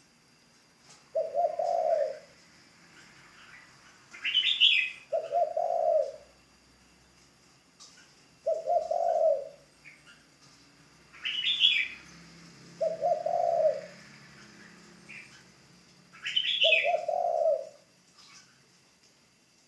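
Spotted dove cooing: five low coo phrases, each under a second, repeated about every four seconds, with a short higher call three times between them.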